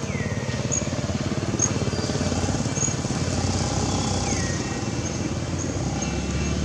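An engine running steadily, its low note growing stronger about two seconds in. High short chirps sound about once a second, and two brief falling whistles come near the start and about four seconds in.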